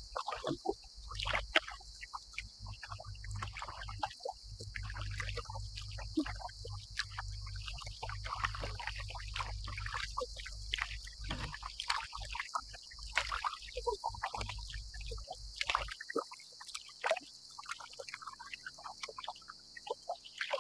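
Small waves lapping and splashing irregularly against a plastic kayak hull, with quick sloshes and drips. A low steady rumble runs underneath for most of it and drops away about three quarters of the way through.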